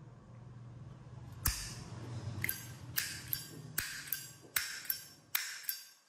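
Solid brass Zippo lighter's hinged lid flicked open and snapped shut over and over, a sharp metallic clink about every half second, starting about a second and a half in.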